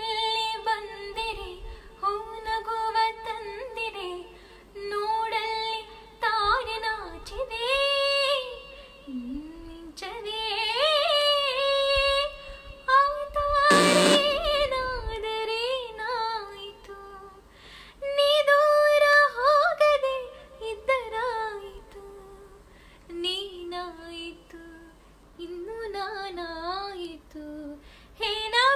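A woman singing a Kannada film song unaccompanied into a handheld karaoke microphone, in long wavering phrases with short breaks between them. A brief hiss cuts in about halfway through.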